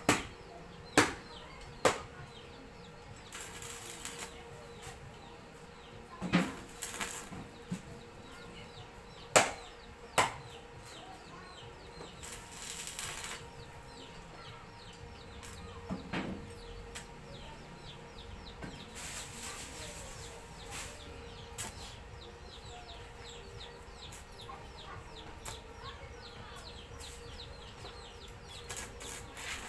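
Scattered sharp knocks and several short hissing bursts of about a second each over a faint steady hum.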